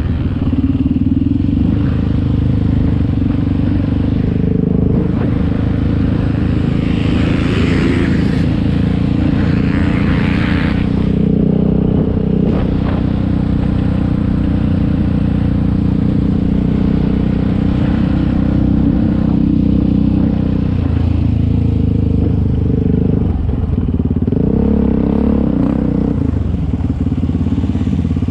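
Yamaha Raptor 700 ATV's single-cylinder four-stroke engine running under throttle while being ridden on dirt, its pitch rising and falling as the throttle opens and closes. A rush of noise joins it for a few seconds about a third of the way in.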